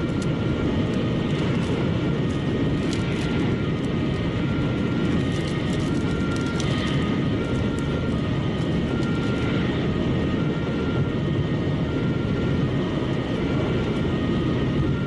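Steady road and engine noise of a car cruising at motorway speed, heard from inside the cabin: an even low rumble that does not change.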